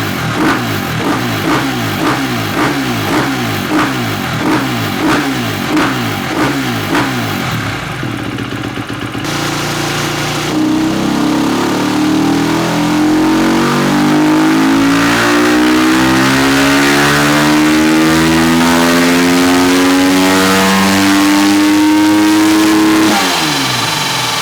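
2018 KTM EXC-F 250 single-cylinder four-stroke engine running on a dyno through its silencer with the dB-killer insert removed. For the first eight seconds or so it pulses about twice a second. About ten seconds in it starts a long pull with the revs climbing steadily for some twelve seconds, then falls back off near the end.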